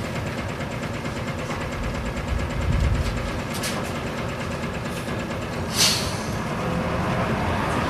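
Isuzu Cubic KC-LV380N bus's V8 diesel engine running with a steady low rumble, heard from inside the cabin while the bus drives along. A short hiss of released air comes just before six seconds in.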